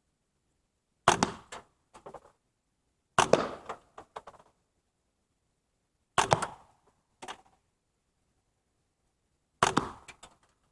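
Four shots from a semi-automatic .22 LR rifle firing 970 fps subsonic rounds, spaced two to three seconds apart. Each shot is a short, sharp report followed by a fainter knock less than a second later.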